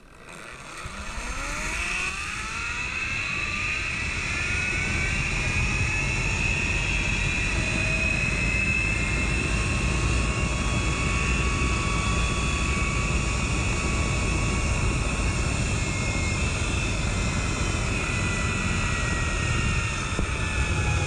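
Zip-line trolley pulleys running along a steel cable, a whine that rises in pitch over the first couple of seconds as the rider picks up speed, then holds steady and starts to drop near the end as the ride slows. Wind rushes over the helmet microphone underneath.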